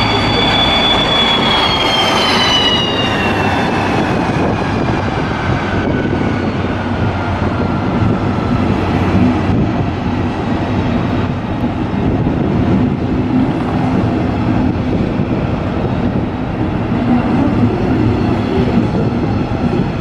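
Electric train running, with a high whine that slides down in pitch over the first several seconds as it slows, then a steady rumble of wheels and motors.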